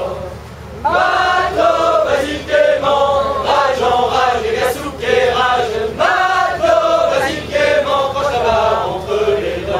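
Tall-ship crew singing together in a loud group chant, starting about a second in.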